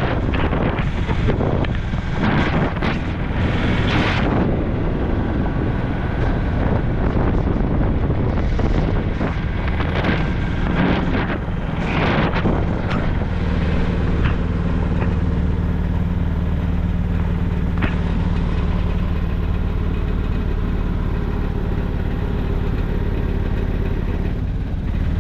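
A motor vehicle engine running, with wind rushing over the microphone; a steady low engine hum stands out more clearly from about halfway through.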